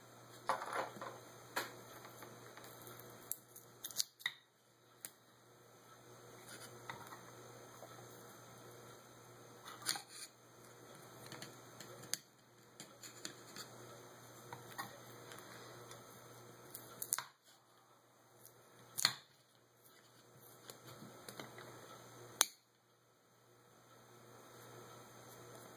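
Flathead screwdriver scraping and prying an old gasket off the metal body of a Holley 600 carburetor: scattered small clicks and scrapes, the gasket being worked loose in one piece, over a faint steady hum.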